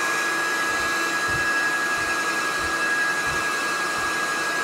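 Black+Decker hot-air heat gun running steadily, its fan blowing with a thin, steady whine, as it is played over plastic wheel caps.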